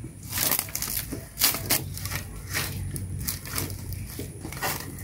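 Dry firewood and bark being pulled from a woodpile and gathered, making a run of irregular crackles and scrapes as the dry wood rubs and breaks.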